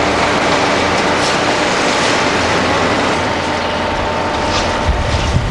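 Construction site din from heavy tracked machinery working in a building pit: diesel engines running with a steady mechanical rumble and rattle. A deeper engine rumble swells near the end.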